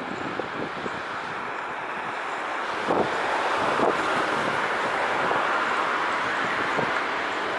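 Boeing 737 jet engines on the landing rollout, a loud steady rushing roar that swells about three seconds in and holds, with wind buffeting the microphone.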